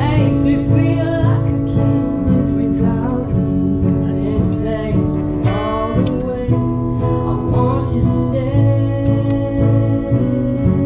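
Live amplified music: a woman sings into a microphone over a strummed acoustic guitar.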